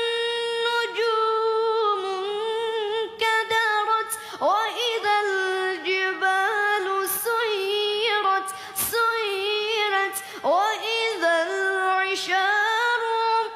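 A boy reciting the Quran in the melodic tajweed style, a high voice holding long drawn-out notes with rapid wavering ornaments. The phrases are broken by short breaths about four and a half seconds in, near nine seconds, and just after ten seconds.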